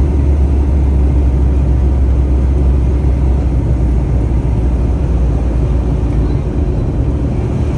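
Steady low cabin rumble of a CRJ-900 in flight: airflow along the fuselage and the rear-mounted turbofans, heard from a seat over the wing.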